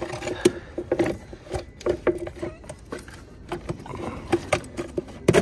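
A quick series of clicks and knocks from a 10 mm ratchet and the plastic air box being worked loose under a car's hood. The engine is off.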